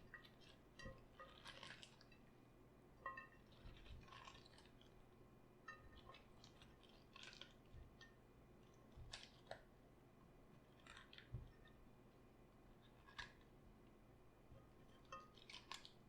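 Raw cabbage crunching in short, irregular bursts every second or two.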